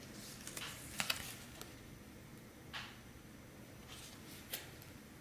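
Faint rustling and a few light clicks of a card hang tag being handled on a swimsuit, the loudest about a second in.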